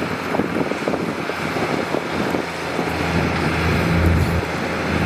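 Heavy diesel engine of a dump truck or bulldozer running under a steady rushing noise. Its low note swells and grows louder about three seconds in, and holds.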